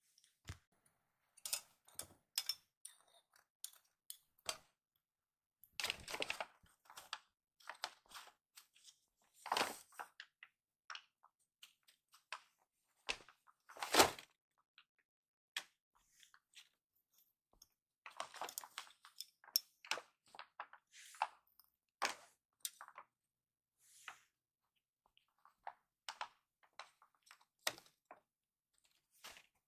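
Kraft-paper cat tunnel crinkling and rustling in irregular bursts as a kitten scrambles inside it, with light clatters of small plastic toy traffic cones and barriers being knocked over. The loudest is a single sharp knock about halfway through.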